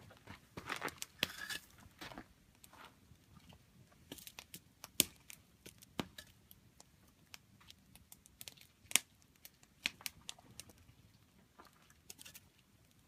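Campfire burning with scattered sharp crackles and pops, the loudest about five and nine seconds in. A brief rustle about a second in.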